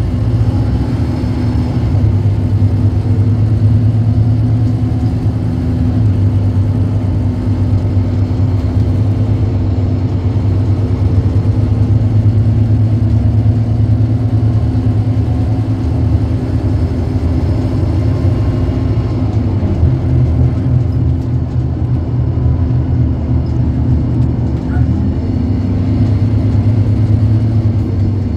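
Scania K230UB bus's 9-litre five-cylinder diesel engine running steadily, with a slight change in the engine note about twenty seconds in.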